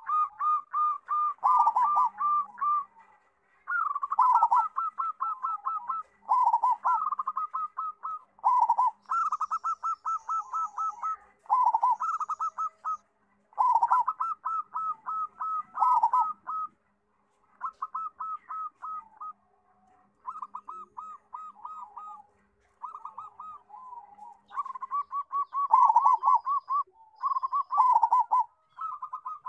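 Zebra dove (perkutut) cooing with a full, big voice: repeated phrases of rapid, evenly spaced coo notes, each phrase a second or two long, with short pauses between.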